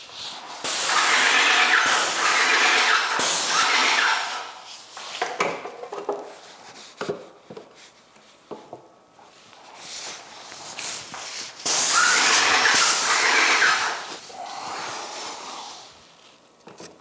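Airless paint sprayer spraying in two steady bursts of several seconds, one about a second in and one about twelve seconds in. In between and near the end come knocks and clatter of plastic paint racks and wooden shelves being flipped and handled.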